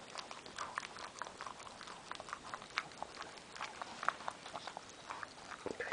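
Newborn Boston Terrier puppy suckling at its mother's teat: faint, irregular wet smacking clicks, several a second.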